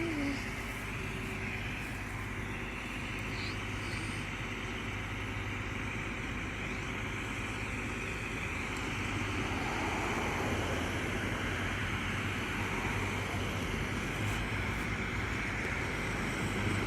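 Steady engine idling with road traffic noise, growing a little louder about halfway through as a vehicle passes.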